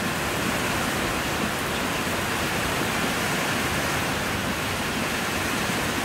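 Rain falling steadily, an even hiss with no breaks.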